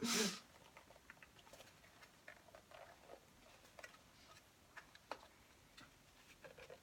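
Faint, irregular small clicks and scratches of fingers picking at a stiff childproof cardboard box, trying to get it open. A short breathy laugh at the very start.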